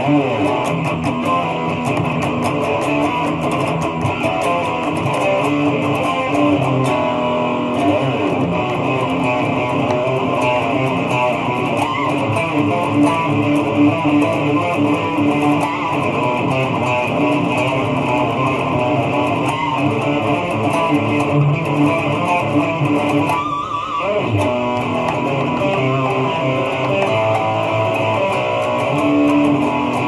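Super Strat-style electric guitar with high-output hot-rail humbucker pickups, played continuously in a run of metal riffs and intros.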